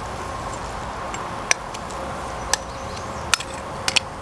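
A lamb shoulder chop sizzling steadily on a grill grate over charcoal, with five sharp crackles, the last two close together near the end.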